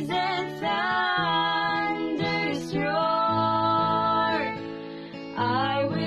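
Music: a slow worship song sung by a woman to acoustic guitar, with long held sung notes.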